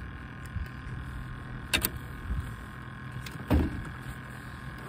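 Small electric motor whining steadily over a low hum. A sharp click comes a little under two seconds in, and a louder knock about three and a half seconds in.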